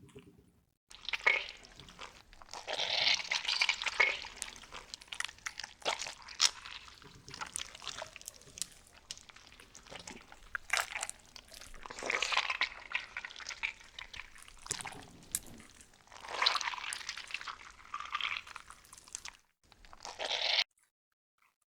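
Slime being squeezed and worked by hand, giving bursts of wet, sticky crackling and popping clicks that come and go in waves. The sound cuts off suddenly near the end.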